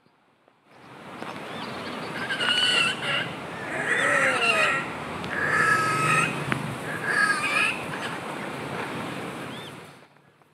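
Pair of red-necked grebes calling to each other at the nest in about four loud bouts, the greeting between mates as they change over on the eggs. The calls sit over a steady hiss that starts abruptly about a second in and cuts off near the end.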